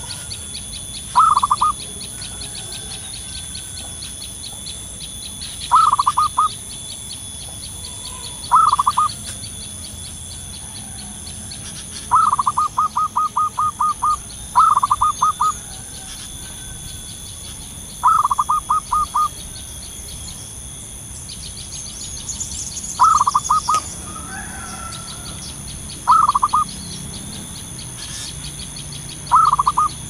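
Zebra dove (perkutut) singing: short phrases of rapid staccato cooing notes, about nine phrases in all, one of them a longer run in the middle.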